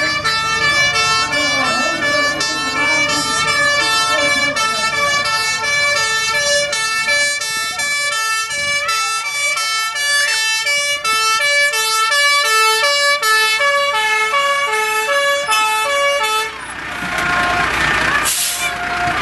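Fire engine's two-tone siren sounding, switching back and forth between two notes, then cutting off abruptly about sixteen seconds in. Afterwards the truck's engine runs on and a short hiss sounds near the end.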